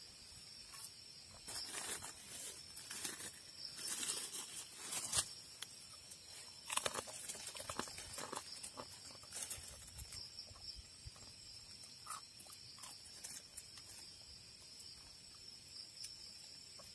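Insects calling in a steady, high, unbroken drone. Over it come scattered rustling and clicking noises, thickest over the first ten seconds or so.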